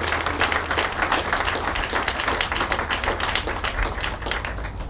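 Audience applauding steadily, many hands clapping at once, dying away near the end.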